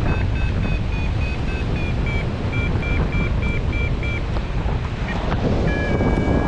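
Wind rushing over the microphone of a hang glider in flight, with a flight variometer beeping: shifting tones, then a quick string of short beeps about three a second in the middle, and a steady held tone near the end. The vario's beeping tracks the glider's rate of climb in the air.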